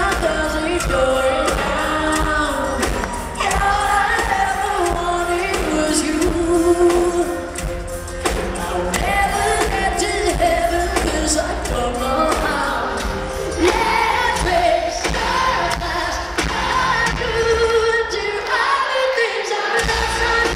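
Live pop-rock concert: a singer over a band with electric guitar, keyboards and drums, amplified through the hall's sound system and heard from within the audience. The bass drops out briefly near the end.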